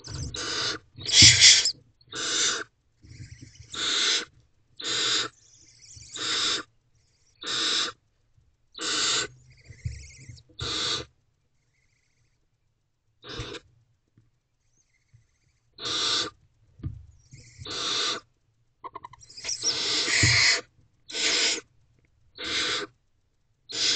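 Barn owl owlets giving repeated rasping, hissing begging calls, roughly one a second. The calls pause for a few seconds midway, then resume.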